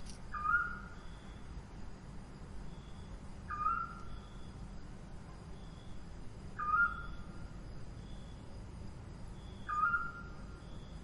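An owl calling: four short, whistled hoots about three seconds apart, each rising quickly and then holding level, over a faint steady high tone and low background rumble.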